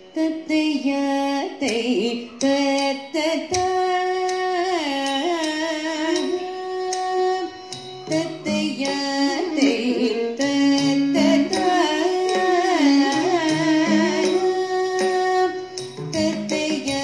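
Carnatic music accompanying a Bharatanatyam shabdam: a singer carrying the melody with gliding, held notes over sharp drum strokes and instrumental accompaniment, in ragamalika set to misra chapu tala.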